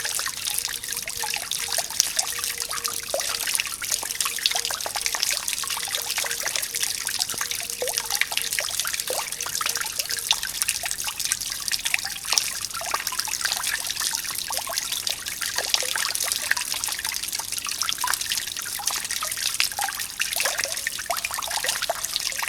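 Water fountain splashing and trickling continuously, a steady wash of falling water with a dense, irregular patter of small splashes.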